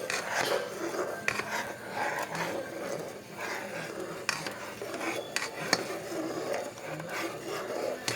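A spoon stirring a thick tomato-paste, onion and oil base in a cooking pot, scraping around the pot in repeated strokes, with a few sharp clicks against the pot.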